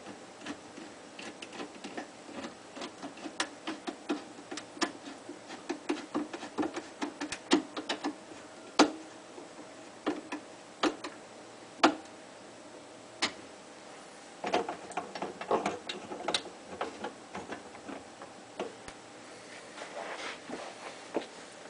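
Irregular clicks, taps and light scraping of metal and plastic parts as a drain pipe is fitted to a garbage disposal and its screws are driven in with a flathead screwdriver, with a denser stretch of scraping about two-thirds through.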